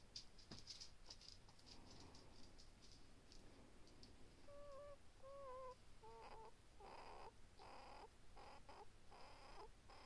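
Faint breathing with short, high, wavering squeaks on the breath that sound like a whimpering baby. These give way near the end to a quick run of short, breathy puffs.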